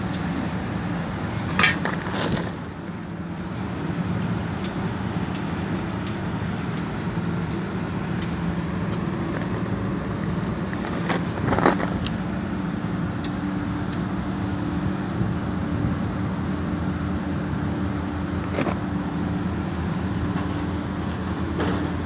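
Steady low hum of rooftop HVAC equipment running, with a few short knocks and clicks scattered through.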